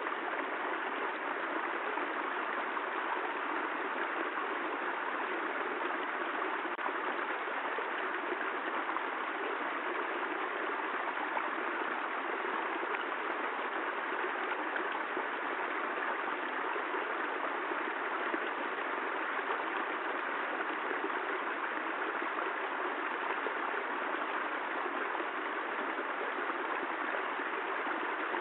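Steady, even rainfall, a constant hiss of rain with no thunder.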